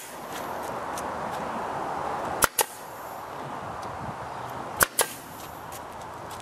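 Pneumatic brad nailer firing straight brads through wooden lattice strips into the frame, twice, about two and a half seconds apart. Each shot is a sharp snap followed at once by a smaller click.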